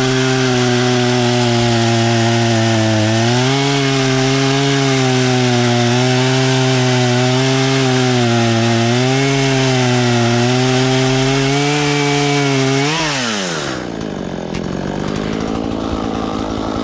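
Husqvarna 120 Mark III two-stroke chainsaw at full throttle cutting through an ash log, its pitch wavering as the chain loads and frees in the wood. About thirteen seconds in the throttle is released and the engine falls back to a steady idle.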